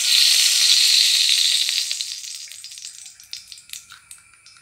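Ghee sizzling as it melts in a hot uruli, with scattered crackles. The sizzle is loudest at first and dies away over the next few seconds.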